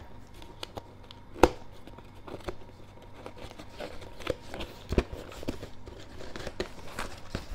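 Packaging being opened by hand: soft crinkling and tearing with scattered sharp clicks and knocks, the loudest about a second and a half in and another about five seconds in.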